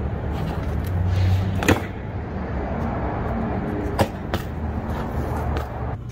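BMX bike rolling on concrete with a steady tyre rumble, and sharp clacks of the bike hitting the ground about two seconds in and again about four seconds in.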